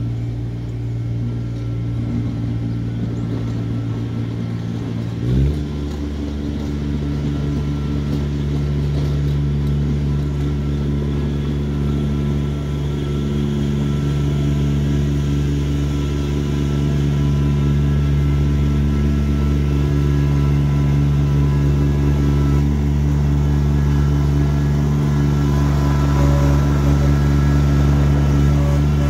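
Kubota BX2660 sub-compact tractor's three-cylinder diesel engine running steadily; about five seconds in its pitch steps up as the engine speeds up, and it grows gradually louder as the tractor comes closer.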